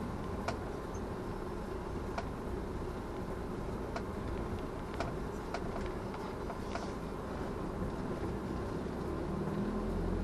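Steady road and engine noise of a car driving along, with a few faint sharp clicks scattered through it.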